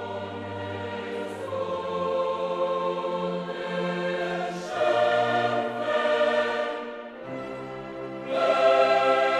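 Choral music: voices holding long chords that move to a new chord about every three seconds, growing louder near the end.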